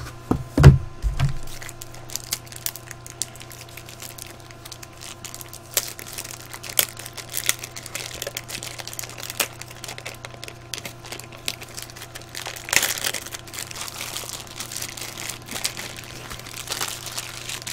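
Packaging being unwrapped and handled, crinkling and crackling in many short bursts, with a thump about a second in and denser crinkling near the end.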